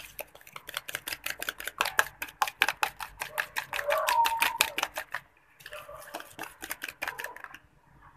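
Fork beating egg and sugar in a ceramic bowl: rapid, even clicks of the metal tines against the bowl, several a second. A short pause comes about five seconds in, then the beating resumes.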